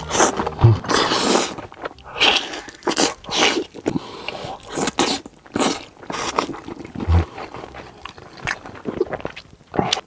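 A person eating close to the microphone: chewing and biting in quick, irregular crunchy bursts.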